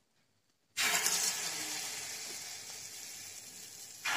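Palm-fruit batter fritters (taal bora) sizzling in hot oil. The sizzle starts suddenly under a second in as a dollop hits the oil, slowly dies down, and flares up again near the end as another dollop goes in.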